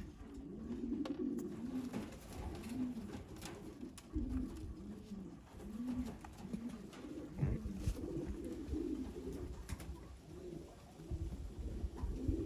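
Racing pigeons cooing: a continuous run of low, arching coos, one after another and overlapping. Low rumbles come in now and then, the longest near the end.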